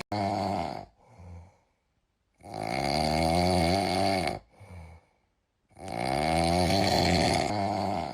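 Snoring in a steady rhythm: long, loud snores about every three and a half seconds, each followed by a short, softer breath.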